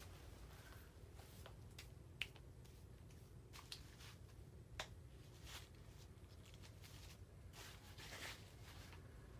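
Near silence: quiet background with a few faint, scattered clicks and rustles, the sharpest about two seconds in and again near the middle.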